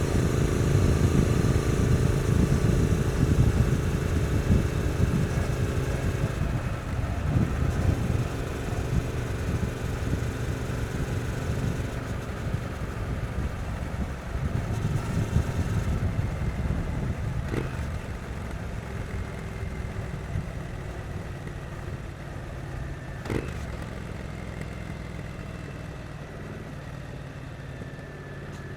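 Triumph Street Twin's 900 cc parallel-twin engine running while the bike is ridden, heard on board: strongest in the first few seconds, then gradually quieter as it eases off. A few short clicks come through along the way.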